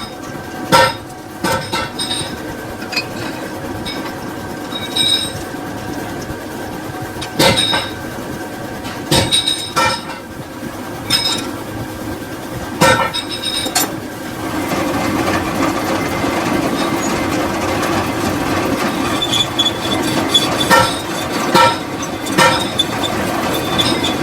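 Metal lathe running steadily, with sharp metallic clinks every second or two. About halfway through the running turns louder and rougher.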